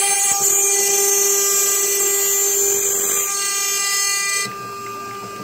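Probotix CNC router's water-cooled spindle bit cutting into a carbon-fibre part: a loud high-pitched cutting hiss over a steady whine. It gets clearly quieter about four and a half seconds in.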